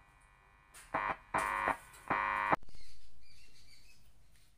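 Speaker on a freshly wired CD4440 (LA4440) dual-channel amplifier board as power is applied: three short steady electronic tones about a second in, each cutting off abruptly, then a hiss with faint chirps that fades away over about two seconds.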